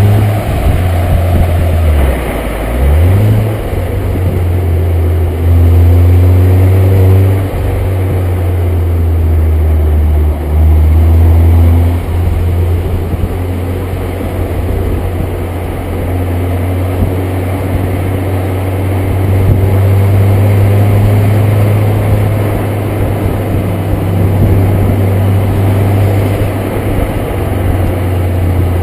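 A VW Fox 1.0's four-cylinder engine and exhaust running under way. The revs dip and rise several times in the first twelve seconds, with louder pulls, then settle into a steadier drone.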